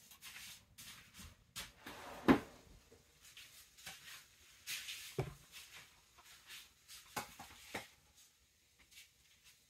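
Kitchen handling noises: light rustling with a string of knocks and clicks as things are moved and set down, the sharpest about two seconds in and a few more around five and seven to eight seconds.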